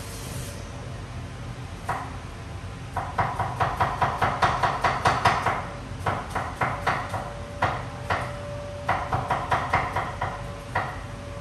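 Runs of sharp knocks from food preparation at a kitchen counter, about five a second at their fastest, with short pauses between runs, over a faint steady hum.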